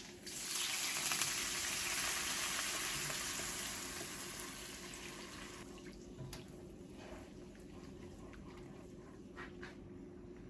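Tap water running into a sink. It starts about half a second in and eases off after a few seconds, followed by a few light clicks.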